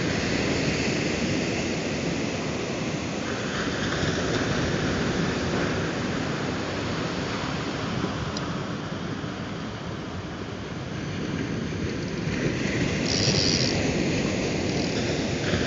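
Steady surf breaking on the beach, with wind on the microphone, making a constant rough noise. A short high-pitched squeak sounds about 13 seconds in.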